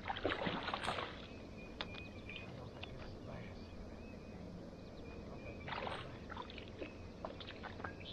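Faint water splashing and sloshing with scattered small clicks and knocks, as a hooked fish is worked in and landed. There is a denser flurry in the first second and another about six seconds in.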